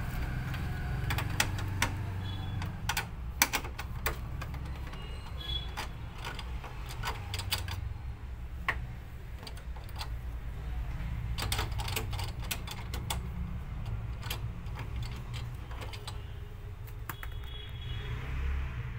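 Irregular light clicks and taps of a hand driver working a nut loose on a photocopier's metal frame, over a low steady hum.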